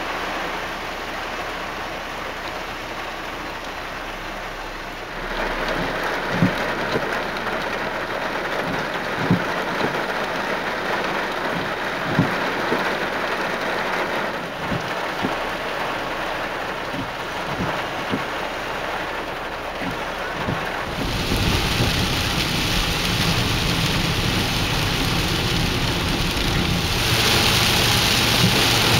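Heavy rain pouring down, a steady hiss with a few sharp taps of drops striking close by. It grows louder about five seconds in, and much louder and fuller again past two-thirds of the way through as the downpour intensifies.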